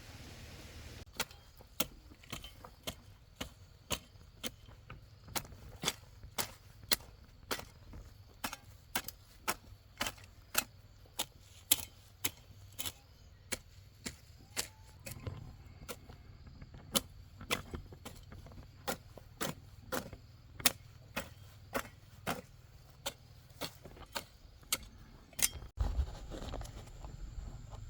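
Steady, rhythmic chopping strikes of a hand tool, about two sharp blows a second, that stop suddenly a couple of seconds before the end.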